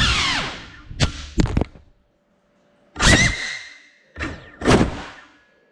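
A Cinelog 35 FPV cinewhoop's motor whine dies away as the drone comes down in a crash, followed by a few sharp knocks. Then come three short bursts of motor whine with clatter, each dying away quickly, as the downed drone's motors are blipped while it lies on the floor.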